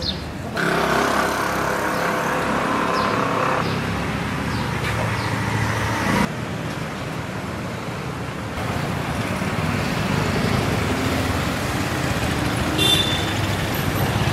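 Street traffic noise: passing vehicles' engines and tyres, with the ambience changing abruptly a few times as the shots change. A brief high tone sounds near the end.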